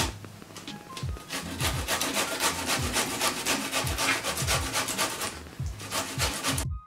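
Boiled beetroot rubbed up and down a stainless-steel box grater into a metal bowl: a quick, steady run of rasping shredding strokes that stops abruptly near the end.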